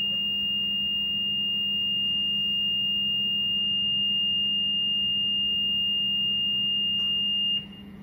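MWE3 grill's steady high reed-switch beep, a single continuous tone over a low hum, that cuts off suddenly about seven and a half seconds in. The beep shows the reed switch is still activated, and it stops when the adjuster is wound anti-clockwise far enough to release the switch.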